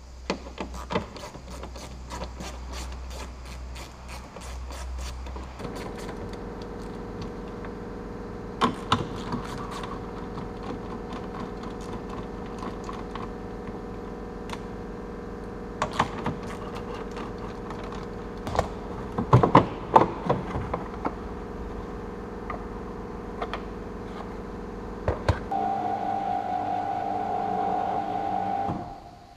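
Hand work on a car's tail-light fitting with a screwdriver: scattered clicks and knocks of the tool and plastic trim, loudest about twenty seconds in. Under it runs a steady machine hum that starts about six seconds in, shifts to a higher tone near the end, then stops.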